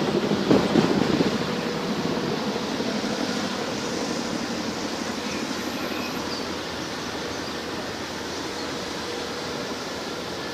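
Military aircraft flying past, its roar loudest about a second in and slowly fading away as it recedes.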